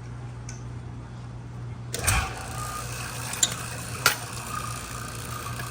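Refrigeration vacuum pump switched on about two seconds in and running steadily, evacuating the refrigerator's sealed system after a compressor replacement. A few sharp metallic clicks come from the hoses and fittings, over a low steady hum.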